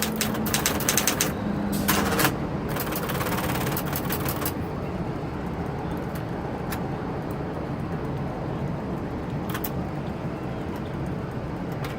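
Smith Corona Coronet Automatic electric typewriter: rapid keystrokes for the first second or so, a louder clack about two seconds in, and a fast run of clicking up to about four and a half seconds in. After that the motor hums steadily, with only an occasional single click.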